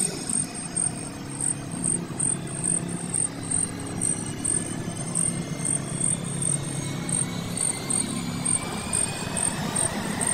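Crickets chirping in a steady high pulse, about three a second, over a steady low engine drone with slowly gliding tones, like a passing aircraft or vehicle.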